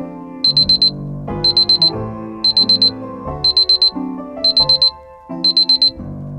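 Digital alarm clock going off: six quick runs of high-pitched beeps, about a second apart, with piano music playing under them.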